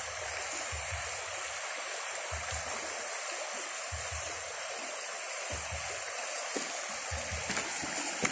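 A small creek running steadily over gravel and stones, a continuous rushing, with soft low thumps about every second and a half.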